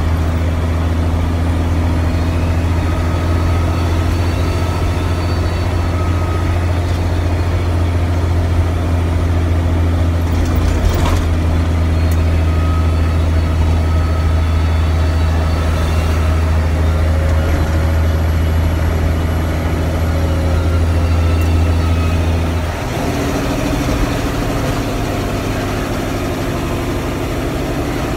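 Cummins diesel engine of a 1998 International 9400 truck heard from inside the cab, running at a steady speed on the road as a deep, even drone. About 23 seconds in, the engine note changes abruptly as the deepest part of the drone drops away. A single knock sounds about 11 seconds in.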